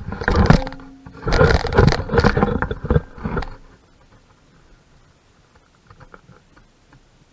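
Loud rustling, scraping and bumping of the camera being handled and repositioned. It stops about three and a half seconds in, leaving only a few faint clicks.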